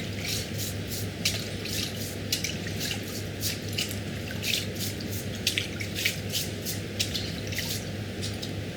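Water dripping and splashing in small irregular drips, a couple a second, over a steady low hum.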